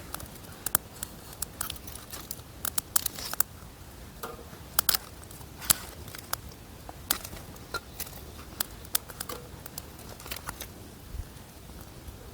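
Irregular sharp clicks and crackles, some in quick clusters, over a steady low background, like small objects being handled close to the microphone.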